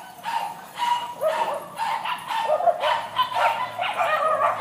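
A group of small dogs barking and yapping over one another, short barks coming several times a second.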